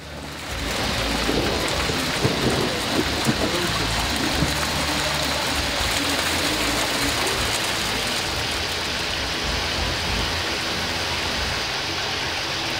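Heavy rain pouring down steadily, starting about half a second in.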